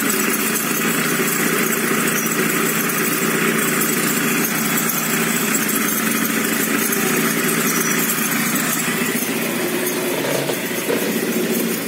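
Scooter engine idling steadily with a squeak on top, a squeak that appears only once the engine is warm and not when it is cold. The engine stops near the end.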